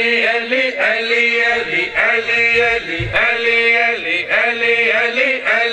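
A man reciting a devotional qasida as a sustained, melodic chant, holding long notes in rising and falling phrases.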